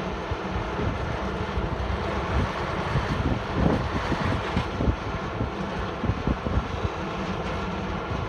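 Heavy diesel earth-moving machinery running steadily, with wind buffeting the microphone.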